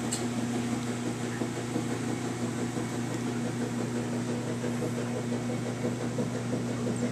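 Steady low electrical hum of a running motor or appliance, unchanging throughout, with a faint click just after the start.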